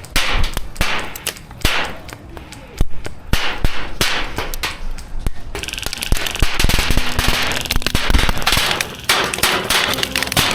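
Airsoft guns firing in an exchange of fire: an irregular run of sharp snaps and cracks, denser and quicker from about halfway.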